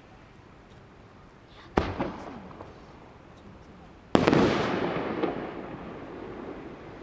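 Fireworks bursting: a sharp bang with a couple of smaller cracks after it, then a second, louder bang a little over two seconds later whose rumbling echo dies away over about two seconds.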